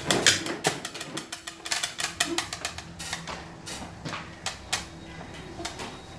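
Xiangqi pieces clicking and clacking as they are set down and slid on a wooden board and knocked together in the hand: a rapid, irregular run of sharp clicks that thins out near the end.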